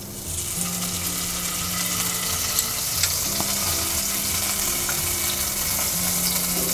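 Butter sizzling as it melts in a hot nonstick kadai. The hiss comes up within the first second and then holds steady, with a few faint clicks of the spoon against the pan.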